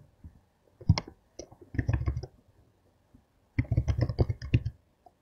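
Computer keyboard keys clicking in short runs as a web address is typed into a browser: a single click about a second in, then a quick run of keystrokes around two seconds in and a longer run near four seconds.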